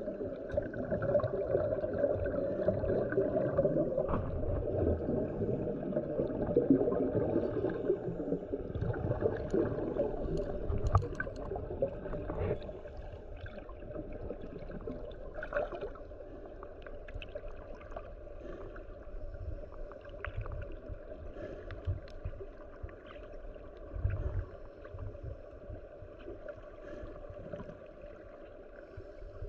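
Muffled underwater rushing and bubbling from a scuba diver's exhaled regulator bubbles, louder for the first dozen seconds and then quieter, with scattered faint clicks.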